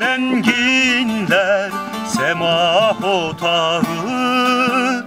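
A man singing a long, ornamented line of a Turkish folk song (türkü), the pitch wavering and gliding, over instrumental accompaniment.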